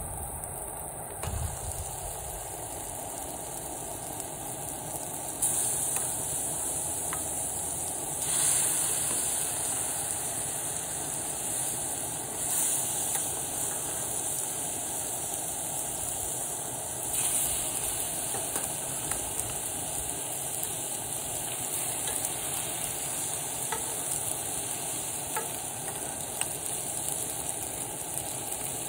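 Seafood sizzling in a cast-iron skillet on a camp stove, with a pot of water boiling beside it. The sizzle flares up several times as wet ravioli are lifted from the boiling water and laid in the hot pan.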